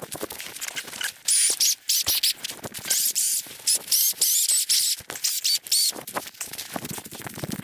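A hand saw cutting through a log in rhythmic back-and-forth strokes, about two a second, the blade rasping with a faint squeal.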